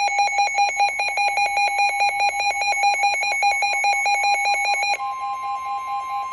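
Electronic alert alarm on a weather-alert radio, beeping rapidly in a buzzy warble at about a dozen pulses a second, which signals an incoming severe-weather warning. About five seconds in it drops in level, and the steady 1050 Hz warning alarm tone of NOAA Weather Radio comes in.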